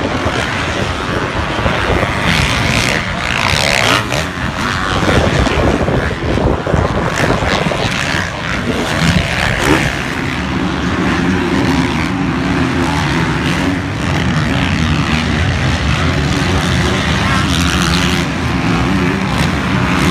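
Motocross dirt bike engines revving on the track, the pitch rising and falling. From about halfway a steadier engine drone takes over.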